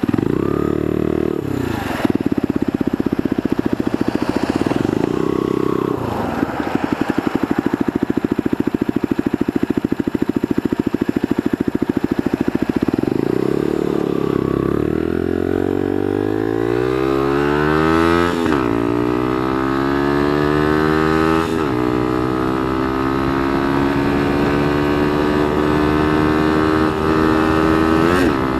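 Bullit Hero 125 scrambler's single-cylinder 125cc engine, heard from the rider's seat. It revs up briefly twice, then idles steadily. About halfway through it pulls away, climbing in pitch, and changes up twice, each shift dropping the note, before settling to a steady cruise.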